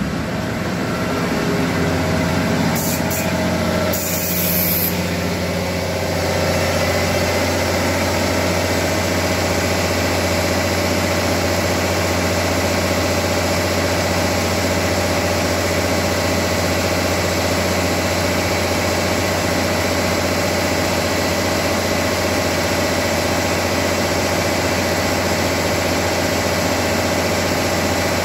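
Diesel train engines idling with a steady low hum and an even drone above it. A short hiss sounds about three to five seconds in.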